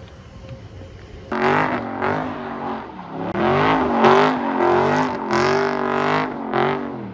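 Dodge Scat Pack's 392 HEMI V8 revving hard, pitch rising and falling over and over, with the rear tires spinning and squealing as the car does donuts. It starts suddenly about a second in.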